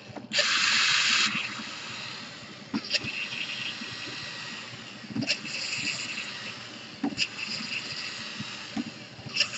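Power screwdriver whirring in several short bursts, the longest and loudest about a second long near the start, with clicks and knocks between, as screws are driven out of a laptop's bottom case.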